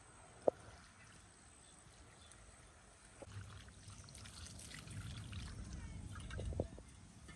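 A sharp knock about half a second in, then water poured from a clay jug splashing onto raw chicken pieces in a bowl, starting about three seconds in and stopping shortly before the end.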